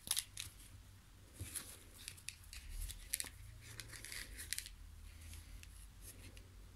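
Intermittent light rustling and scraping of paper, card and lace as a handmade scrapbook envelope is handled and closed, with a few small clicks.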